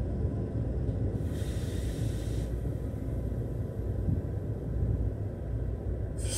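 Running rumble of a Meitetsu Panorama Super electric train heard from inside its front passenger cabin, steady and low, with a brief hiss about a second in.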